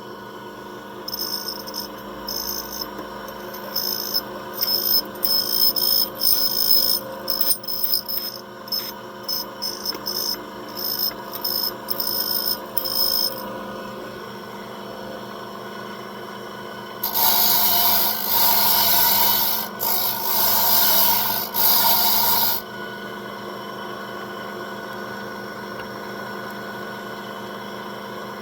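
Key-cutting machine running with a steady motor hum, its cutter biting into a Schlage key blank in a rapid series of short cuts, then a few longer, louder cutting passes about two-thirds of the way through, after which the motor runs on alone.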